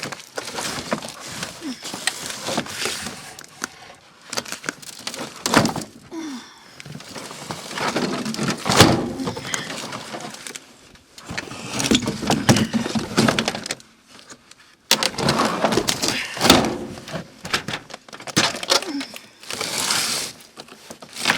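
Objects being handled and moved about: irregular knocks, clunks and clatter with rustling in between, broken by a few short pauses.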